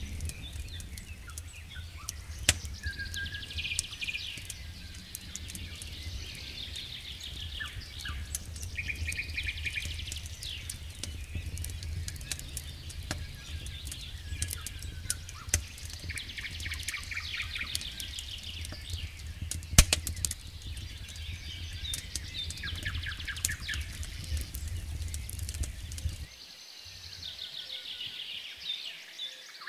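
Wood campfire crackling with scattered sharp pops, one loud pop about two-thirds of the way through, while songbirds sing repeated chirping and trilling phrases.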